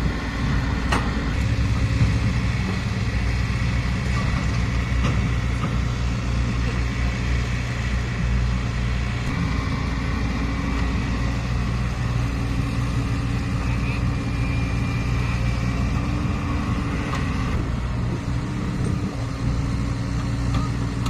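Caterpillar 307E mini excavator's diesel engine running steadily, with a few light clicks in the first seconds.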